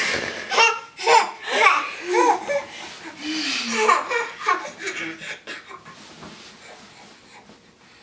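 A baby laughing along with an adult, loudest in the first half and dying away toward the end.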